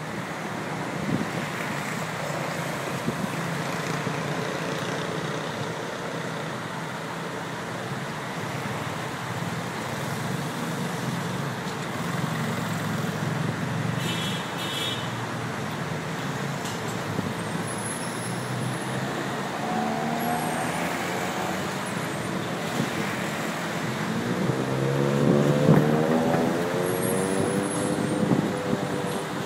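Dense rush-hour city road traffic: a steady wash of engines and tyres. A brief high beep comes about halfway through. Near the end a vehicle's engine climbs in pitch as it accelerates, the loudest moment.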